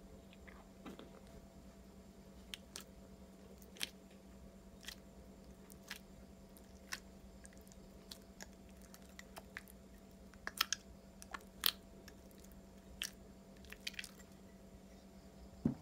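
Clear slime squeezed and pressed inside a thin clear plastic container, giving scattered sharp crackles and pops, with a cluster of the loudest about two-thirds of the way through. A faint steady hum runs underneath.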